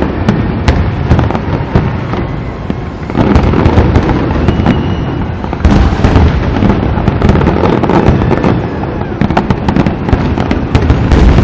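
Fireworks show: a dense, continuous run of booms and crackling reports, swelling in loudness about three and six seconds in.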